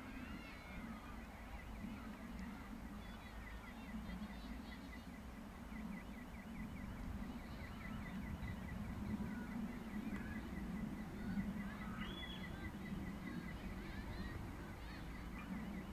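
Birds chirping, with a fast trill repeating in stretches, over a steady low background rumble.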